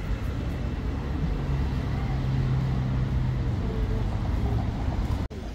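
A Geneva tram running: a low rumble with a steady hum from about a second in until near the end, then the sound cuts out abruptly for an instant.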